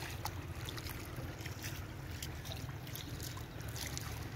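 Wind rumbling on the microphone over shallow river water rippling across a sandy bed, with faint scattered ticks of water.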